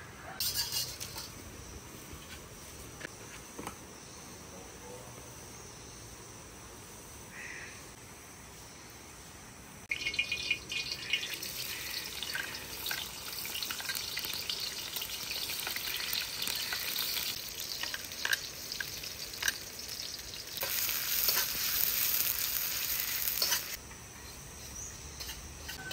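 A pan of squid and rice vermicelli frying: a faint hiss at first, then loud sizzling and crackling that jumps up suddenly about ten seconds in, with sharp clicks throughout and a louder stretch near the end.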